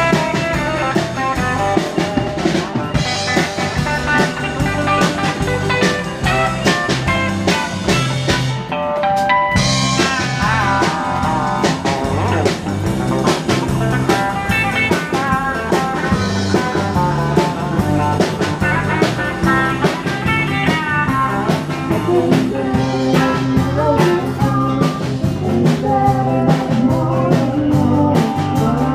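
A live band playing, with electric and acoustic guitars over a drum kit.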